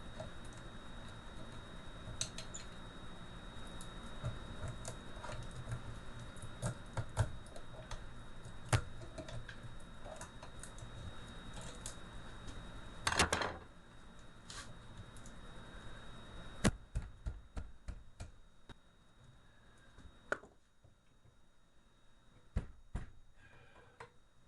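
Screwdriver prying and tapping at the copper windings of a starter motor armature: irregular metallic clicks and taps, with a louder scraping rasp about halfway through.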